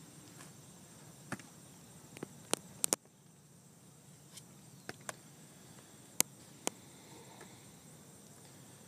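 Quiet open-air ambience with a faint, steady high-pitched buzz, broken by a handful of sharp clicks, two of them louder than the rest: a cluster about three seconds in and a single click a little after six seconds.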